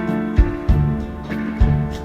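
Background music: the instrumental opening of a pop song with a steady beat.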